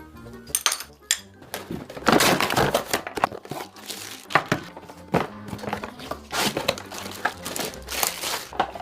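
Irregular crinkling and rustling of plastic or paper wrapping being handled, in uneven bursts, loudest about two seconds in, with faint background music underneath.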